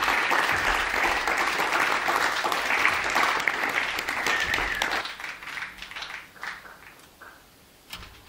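Audience applauding, the clapping thinning out about five seconds in to a few scattered claps.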